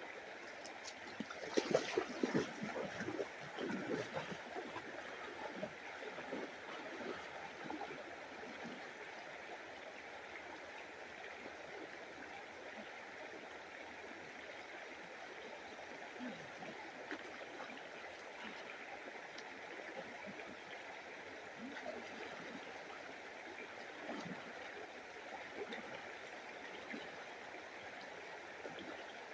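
A cold creek running steadily, with louder splashing for a few seconds near the start.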